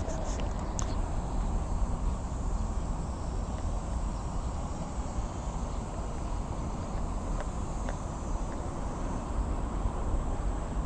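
Steady outdoor background: a low rumble with faint insect chirring high above it, and a few light clicks.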